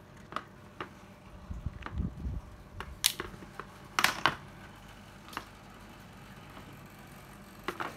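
Scattered clicks and knocks of hand-held cordless tools being handled and set down on a hard surface, the sharpest about three and four seconds in, with a brief low rumble around two seconds in.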